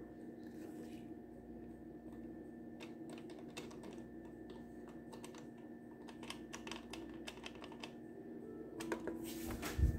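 Irregular clicks of the push buttons on an Oster Accurate Blend 14 blender being pressed and tapped by a finger, in several quick runs, with the motor not running. A faint steady hum sits underneath, and a louder knock comes near the end.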